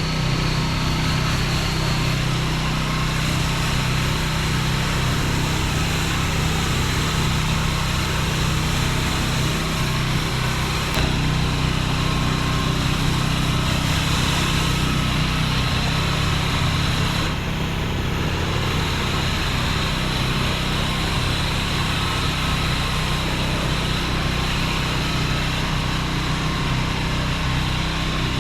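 Pressure washer running: a steady engine hum under the hiss of the high-pressure water jet rinsing down the surface. The spray hiss briefly lets up about two-thirds of the way through.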